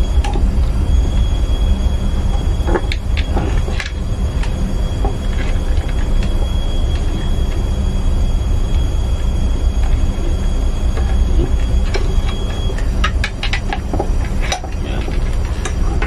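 Steel wire rope being hand-spliced around a thimble with a splicing spike: scattered metallic clicks and scrapes of the wire strands, clustered around three to four seconds in and again from about twelve to fifteen seconds. Under them runs a steady low machinery hum, with a faint high whine that stops about thirteen seconds in.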